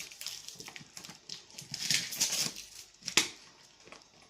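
A plastic bottle of floor cleaner being handled and opened: scattered short hissy rustles, and one sharp click about three seconds in.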